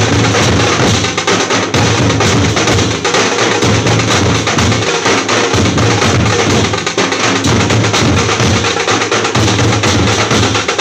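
Loud percussion music: drumming with dense, rapid strikes at a steady level.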